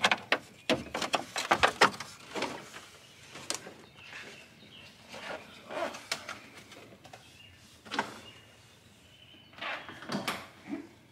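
Plastic dashboard trim being handled and worked loose: a quick run of clicks and knocks in the first two seconds, then scattered taps and scrapes.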